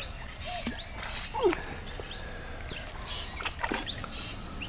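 Birds calling: many short high chirps and whistles, with a louder falling whistle about a second and a half in. A few light clicks sound among them.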